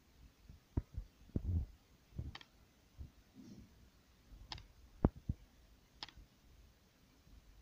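Scattered light clicks and taps of a ballpoint pen and hand on paper during writing, with a sharper knock about five seconds in.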